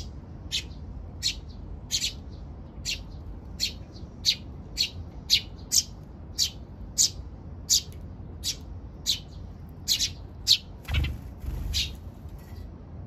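Eurasian tree sparrow chirping over and over in a steady rhythm, with roughly one and a half to two short high chirps a second: the insistent calling of sparrow chicks begging from their parent. A brief low rustle comes about eleven seconds in.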